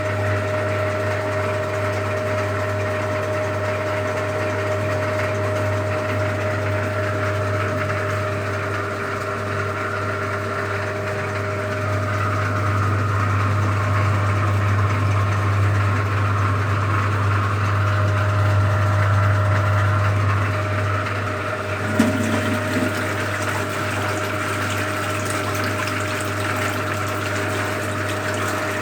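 Soviet Feya-2 activator washing machine running, its electric motor humming steadily while the water churns; about three-quarters through there is a sharp click. The machine has just been lubricated and fitted with a new capacitor.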